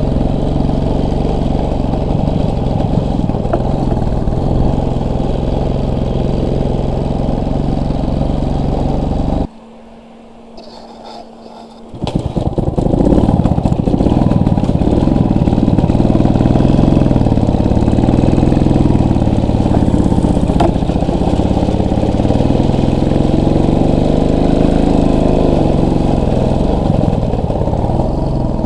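Small motorcycle engine running under way, its pitch rising and falling with the throttle. About ten seconds in, the engine sound drops away for two or three seconds, leaving only a faint steady hum, then comes back louder.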